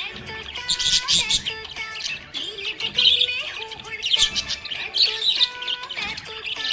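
Budgerigar chirping and warbling in quick bursts about once a second, over a steady musical background.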